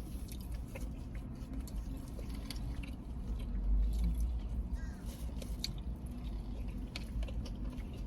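Close-miked chewing: wet mouth sounds with many small, irregular clicks and smacks, over a low steady rumble.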